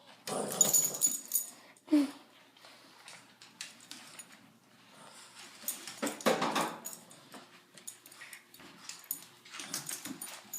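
Dogs play-fighting, with short irregular bursts of dog sounds and scuffling, loudest in the first two seconds and again around six seconds in.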